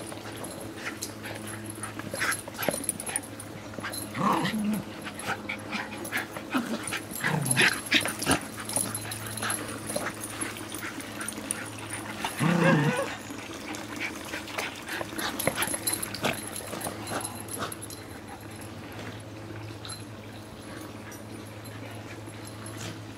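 Small dogs playing and wrestling, with short dog calls a few times (about four, seven and twelve seconds in) among many small clicks and scuffles.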